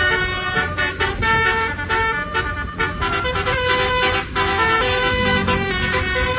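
Multi-tone basuri telolet bus horn playing a melody: steady horn notes stepping from pitch to pitch every few tenths of a second, with a low rumble underneath.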